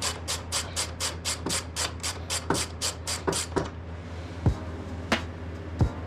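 Ratchet wrench clicking fast and evenly, about eight clicks a second, which stops a little over halfway through. A few separate metal knocks and thuds follow.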